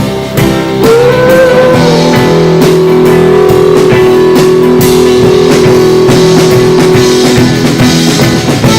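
Live rock band playing an instrumental passage on guitars, bass and drum kit. About a second in, the lead guitar bends up into a single long held note that rings for several seconds over the steady drum beat.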